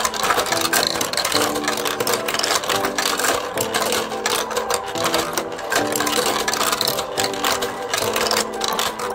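ROKR The Last City electric marble run in operation: its motor-driven lift clicks fast and steadily while marbles roll and clatter along the plastic tracks. Background music plays with it.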